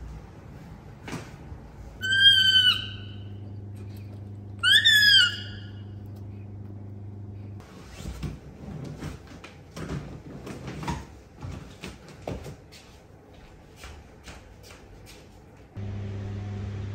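A high whistling call, bending up and then down, sounds twice over a low steady drone; it is an edited-in comic sound effect. Then come soft rustles and knocks of a duvet and a bed as someone climbs over it, and the drone returns near the end.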